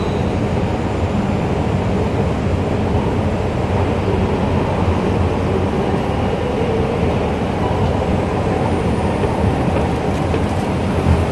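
Escalator running, a steady low mechanical rumble, with a light click near the end.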